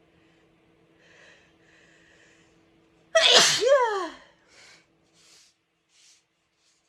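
A woman's single loud sneeze about three seconds in, preceded by two drawn-in breaths, its voiced cry falling in pitch. Three short, faint breaths follow.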